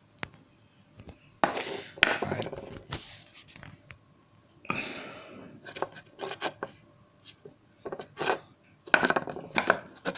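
Carved wooden handles handled and rubbed together in the hand close to the microphone: irregular rustling and scraping with a few sharp wooden clicks, the sharpest about two seconds in.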